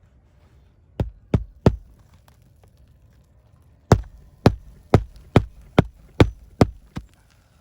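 Hammer driving roofing nails into asphalt shingles: three quick strikes about a second in, then a run of eight sharp blows about half a second apart.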